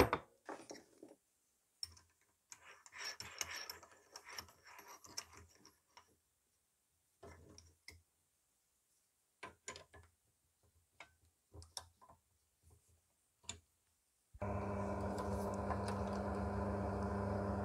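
Scattered light clicks and knocks of a Forstner bit being fitted into a bench pillar drill's chuck, then about fourteen seconds in the pillar drill's electric motor starts and runs with a steady hum.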